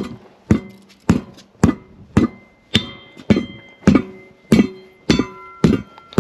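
Hammer blows on a tire to break its bead from the wheel rim: about a dozen evenly spaced strikes, roughly two a second, each with a short metallic ring.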